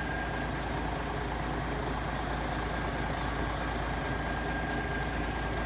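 Mercedes-Benz 1634 truck's six-cylinder OM 457 diesel idling steadily through a straight-through exhaust with no muffler.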